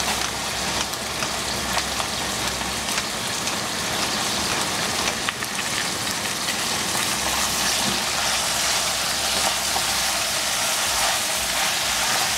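Zucchini and yellow squash sizzling in a stainless steel pan: a steady hiss, with a few faint clicks.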